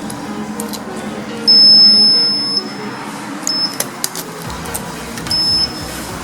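High-pitched electronic beeps: one loud beep lasting about a second, then a short double beep and one more short beep, over a busy background hum.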